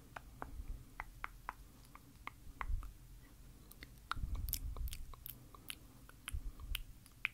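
Close-miked lip gloss sounds: soft, sticky, irregular clicks, a few a second, with dull low bumps of handling near the middle.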